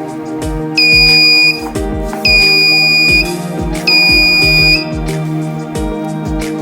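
Piezo buzzer of a homemade laser-beam security alarm (BC547 transistor with a light-dependent resistor) sounding three times, each a steady high-pitched buzz just under a second long, about a second and a half apart. The alarm sounds when the laser beam falling on the LDR is blocked. Background music with a steady beat plays throughout.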